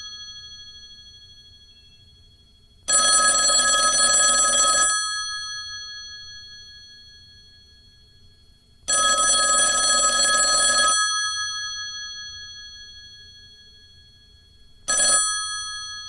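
Telephone bell ringing: two rings of about two seconds each, six seconds apart, each leaving a long fading ring after it stops, then a short ring near the end.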